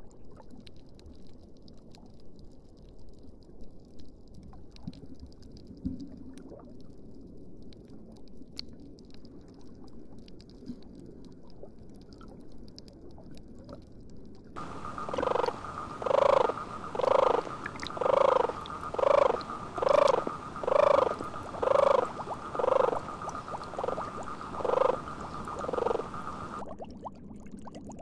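Faint water noise, then from about halfway an animal call repeated about a dozen times at roughly one call a second, each a short pitched pulse.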